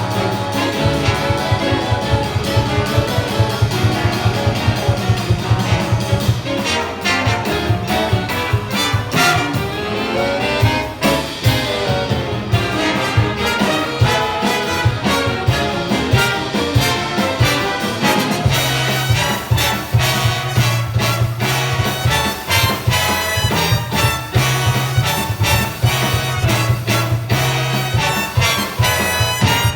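A big band playing jazz, the brass section (trumpets and trombones) carrying the lines over a steady bass and drums with quick repeated low notes.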